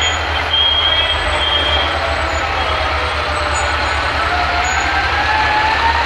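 Fire ladder truck approaching with its horns and siren going. A loud, rough horn blast runs throughout, a steady high tone drops out about two seconds in, and a siren tone climbs slowly in pitch over the last couple of seconds.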